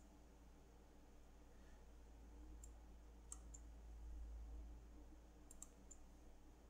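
A handful of faint computer mouse button clicks, in quick pairs and threes from a little under three seconds in, over near-silent room tone with a steady low hum.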